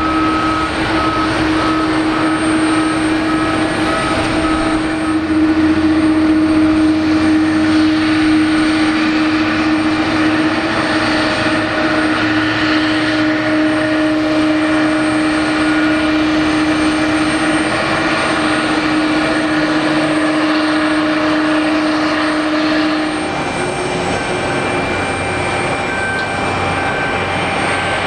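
Jet engines of a Boeing 777-300 airliner running at taxi power: a steady rushing noise with a constant whine on top, the whine dropping away late on.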